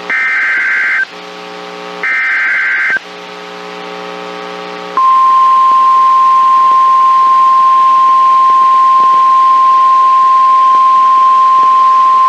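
NOAA Weather Radio SAME header data bursts, the second and third of the set, each about a second of rapid two-tone warbling, with a low buzz in the gaps. About five seconds in, the steady single-pitched 1050 Hz warning alarm tone starts and holds, signalling an incoming severe thunderstorm warning.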